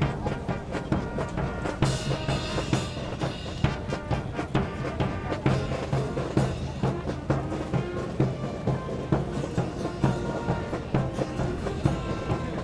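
Music with a steady drum beat and pitched instruments.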